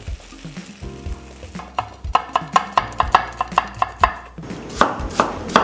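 Kitchen knife chopping an onion on a wooden cutting board: quick even strokes about four a second, then a few heavier cuts near the end.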